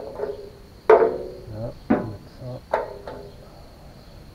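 Four sharp metallic clinks and knocks about a second apart, each ringing briefly, as hard objects are knocked together or set down. Crickets chirp steadily underneath.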